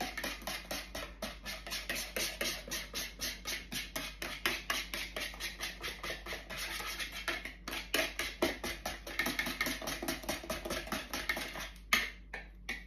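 Hand whisk beating cake batter in a pastry bowl, quick regular strokes about four a second, stopping briefly near the end with a single click.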